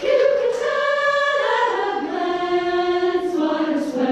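Choir singing a phrase of long held notes that move slowly in pitch, the voices coming in together right at the start.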